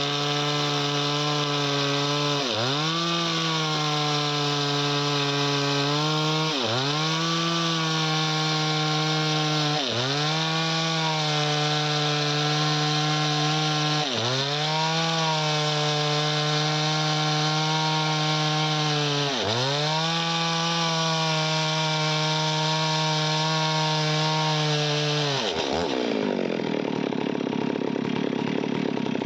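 Chainsaw running at high revs while cutting wood. Its pitch dips sharply and recovers every few seconds, then falls away a few seconds before the end and comes back up.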